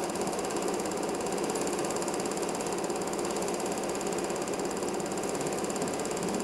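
Film projector running, a steady rapid mechanical clatter of its film transport.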